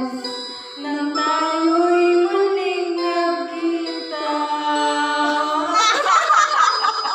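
A woman singing karaoke into a handheld microphone over a backing track, holding long notes, then breaking into laughter near the end.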